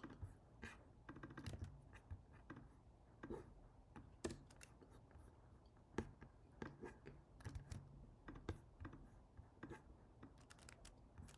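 Faint computer keyboard typing and clicking: scattered, irregular keystrokes with a few sharper clicks.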